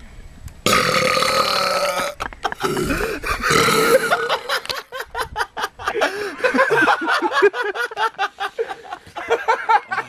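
A person's long, loud deliberate burp lasting about a second and a half, starting about a second in, followed by a second, shorter burp, as competition entries.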